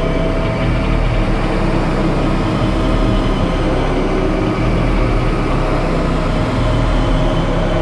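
Loud experimental drone music played live: a heavy low rumble with a few held tones over a dense noisy wash, steady and unbroken.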